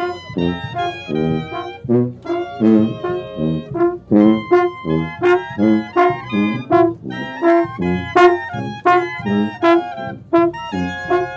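Brass band playing a tune in short notes at a steady pace, with low brass notes marking the beat.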